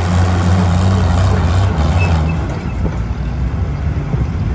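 Tandem-hitched Oliver 880 tractor engines running loud and steady, then the sound eases and roughens about two and a half seconds in.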